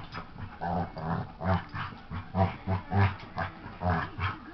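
A golden retriever and a boxer puppy play-fighting, with a run of short, repeated play growls, about two or three a second.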